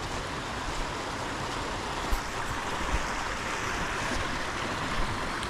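Steady rush of falling and flowing water from a creek and its waterfalls, with a few brief low thumps.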